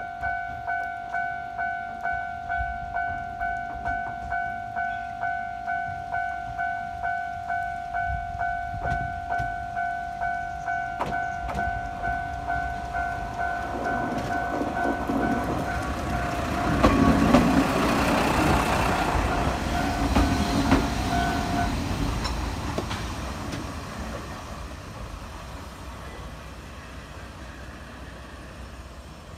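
Japanese level-crossing warning bell ringing steadily at a little under two dings a second, while the Kantō Railway KiHa 532 diesel railcar approaches and passes, its engine and wheels loudest about 17 s in. The bell stops about 22 s in, and the railcar's sound fades as it rolls into the station.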